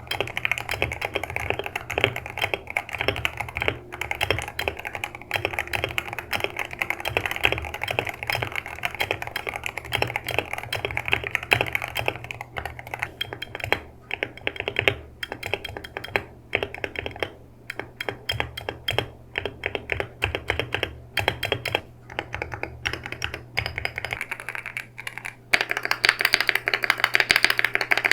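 Continuous fast typing on a Wooting 80HE keyboard with Lekker Hall-effect switches, a dense clatter of key presses; near the end the clatter turns brighter and sharper. The keyboard's spacebar has a pretty bad rattle.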